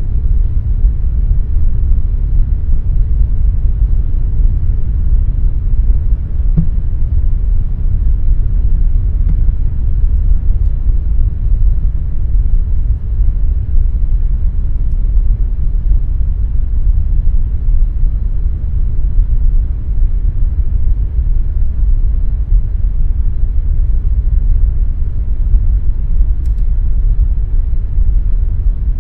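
Air conditioner running with a steady low rumbling noise, even throughout and weighted to the bass.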